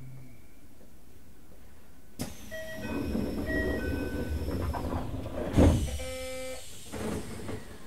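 Inside a Keisei 3000-series train standing at a station: about two seconds in, the door chime starts, repeating a pattern of short notes. The sliding doors then shut with a loud thud past the middle, followed by a brief buzzing tone.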